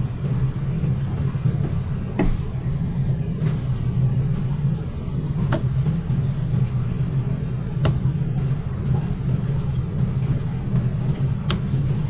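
A steady low machine hum runs throughout, with four short sharp clicks of the knife blade against the plastic cutting board while a fish fillet is being skinned.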